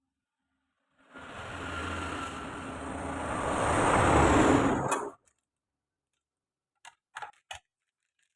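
A small motor or blower runs for about four seconds, getting louder before it cuts off suddenly. Three short clicks follow near the end.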